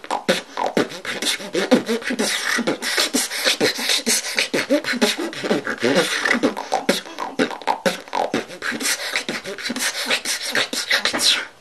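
A female beatboxer beatboxing: a fast, dense stream of mouth-made percussive clicks and snares with short pitched vocal glides underneath, breaking off briefly near the end.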